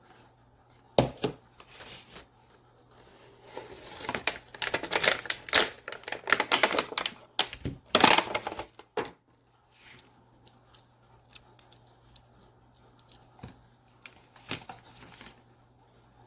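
Handling noises: sharp clicks and rustling, with a busy stretch of rustles and taps from about four to nine seconds in, then a few scattered clicks.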